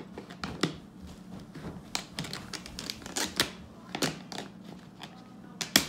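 Thin plastic soda bottle crackling and clicking in irregular bursts as the two cut halves are squeezed and pushed together, with one sharp snap near the end.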